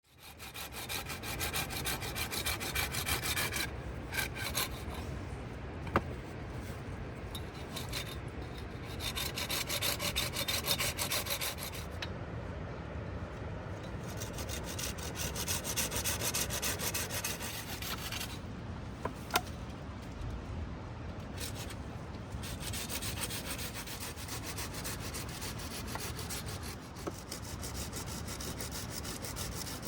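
A hand tool scraping steadily through wood, louder in some stretches than others, with two sharp knocks about six seconds in and again near twenty seconds.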